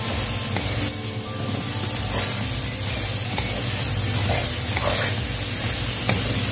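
Diced chicken gizzards and liver sizzling in hot oil in a wok while a wooden spatula stirs and scrapes them, with a few light taps of the spatula against the pan.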